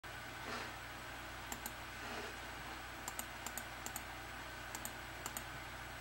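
A series of short, sharp clicks, mostly in pairs a split second apart, starting about one and a half seconds in and coming every half second to a second, over a steady low hum.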